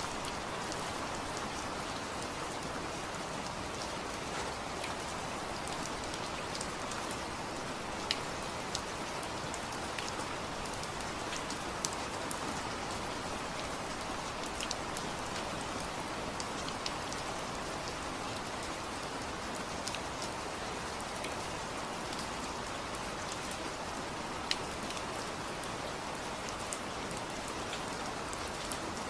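Steady rain falling on a surface, an even hiss with scattered individual drops ticking sharply throughout.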